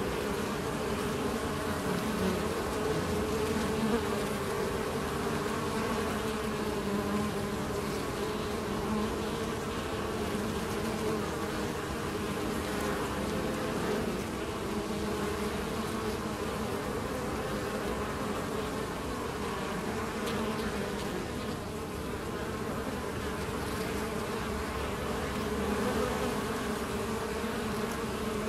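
Many honeybees buzzing at the hive entrance as foragers fly in and out, a steady hum of several overlapping pitches.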